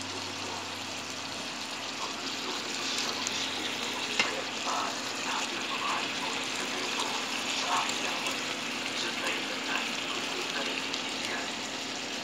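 Food sizzling in hot oil in a frying pan, a steady hiss with a sharp click about four seconds in.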